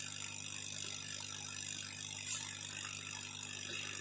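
Hot air rework station blowing a steady stream of hot air through its nozzle, turned down to low airflow, with a steady fan hum underneath.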